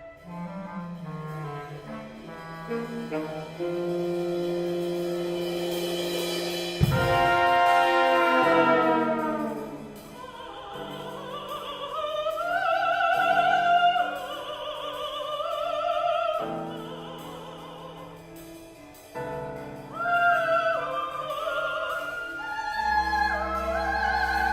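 Chamber ensemble of winds, brass, strings, piano and percussion playing contemporary classical music, with a sudden loud accented hit about seven seconds in. After the hit a solo classical voice sings in a wide, sliding line over the held chords.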